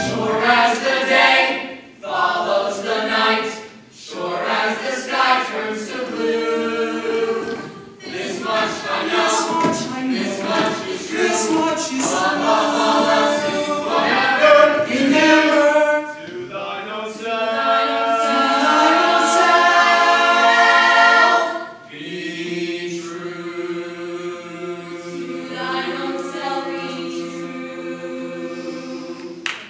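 A musical-theatre ensemble singing together in harmony, in phrases broken by short pauses. From about 22 seconds in it settles into a long, softer held chord.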